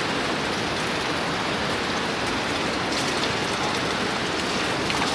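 Spring water pouring steadily from a spout in a hollow tree trunk and splashing onto the ground below.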